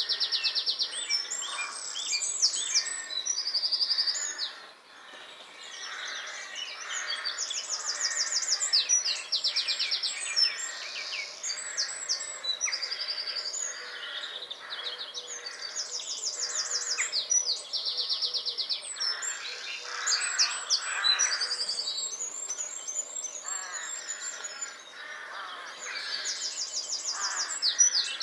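Small songbirds singing: repeated phrases of rapid high trills every few seconds, with more than one song overlapping.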